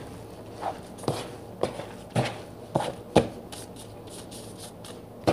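Gloved hands squeezing and kneading salted grated papaya in a plastic bowl to press out its juice: a series of short squeezing sounds, about two a second, that break off for about a second and a half before one more near the end.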